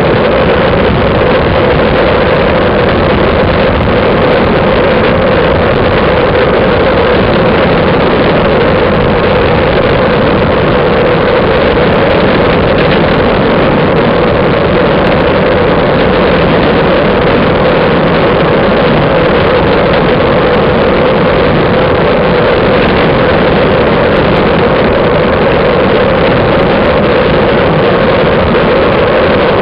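Wind rushing over the microphone of a camera mounted on a moving road bicycle, mixed with tyre noise on asphalt: a loud, even rush that never lets up.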